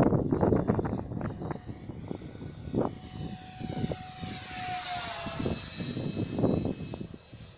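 Small RC jet's 50 mm electric ducted fan, driven by an 8000 kV motor, whining high as it flies, its pitch falling as it passes by about two-thirds of the way through. Strong wind buffets the microphone in irregular low gusts throughout.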